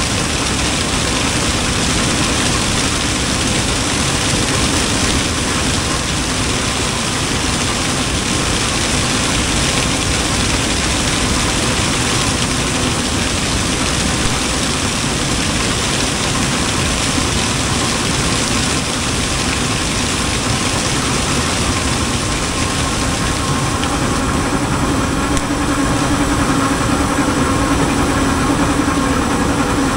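Combine harvester running steadily as its corn head takes in rows of standing dry corn: an unbroken, even mechanical din, with a steadier hum coming in near the end.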